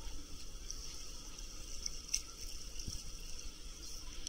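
Lazy-river water lapping and trickling against a camera held at the surface, with a short knock about three seconds in.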